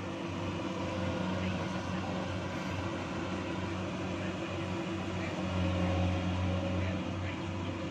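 Kubota DC-70 combine harvester running steadily as it harvests rice, its diesel engine giving an even hum that grows a little louder about six seconds in.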